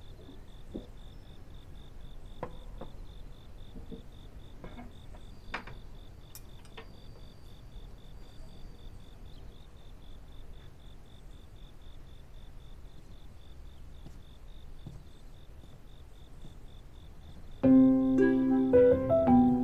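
Quiet room tone with a faint steady, high pulsing tone and a few soft taps, then piano music comes in near the end.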